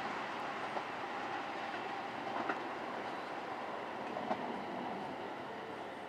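Keihan electric commuter train running away along the track: a steady rumble of wheels on rail, slowly fading, with a few faint wheel clicks over the rail joints.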